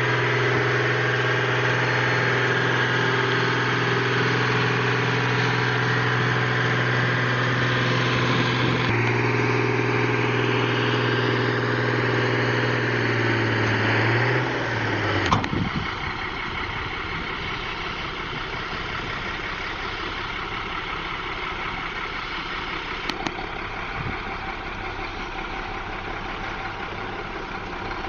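A loaded logging truck's diesel engine running hard and steadily. Its note shifts slightly about nine seconds in, then drops away around fifteen seconds with a sharp click, leaving a quieter, rougher engine sound.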